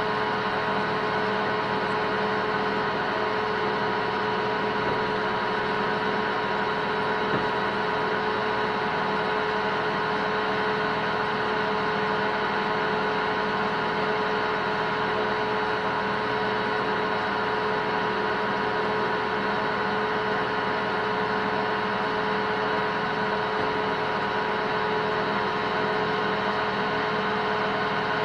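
Metal lathe running steadily, a constant hum with several fixed tones and no change in speed, while a cobalt drill bit in the tailstock is hand-fed into the spinning workpiece.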